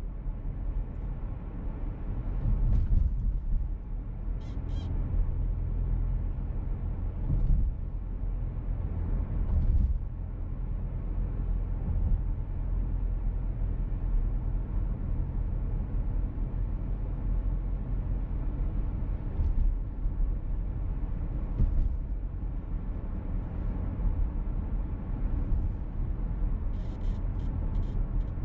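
Steady road and engine rumble inside the cabin of a VW T-Roc petrol car on the move. A few brief high-pitched ticks come about five seconds in and again near the end.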